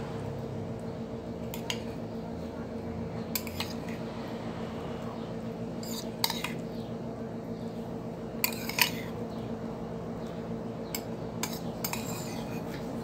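Metal spoon clinking and scraping against a ceramic bowl while crumbled ground beef is spooned out: about ten short, irregular clinks over a steady low hum.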